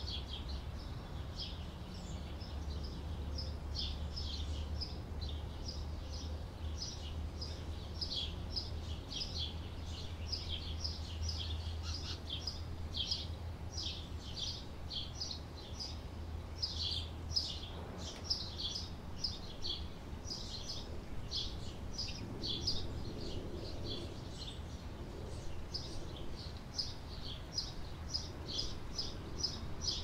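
A flock of canaries chirping busily, a dense run of short, high chirps overlapping one another throughout. A steady low hum lies beneath them, fading out a little past halfway.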